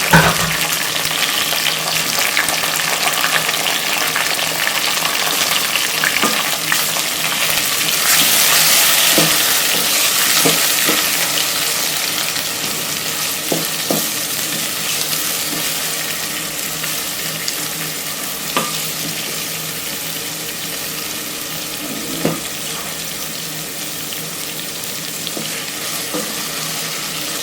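Chicken frying in oil in a pot with freshly added tomatoes and green peppers, sizzling steadily, with the occasional knock of a spoon against the pot while stirring. The sizzle grows louder about eight seconds in and slowly eases off later.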